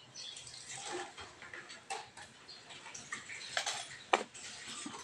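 Scattered light clicks and taps, with soft rustling, from things being handled on a tiled kitchen counter. The sharpest click comes about two seconds in and another just after four seconds.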